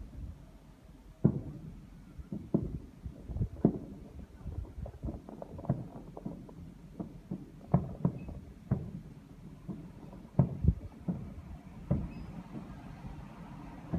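Fireworks exploding in an irregular string of deep booms, sometimes two or three within a second, each with a short echoing tail.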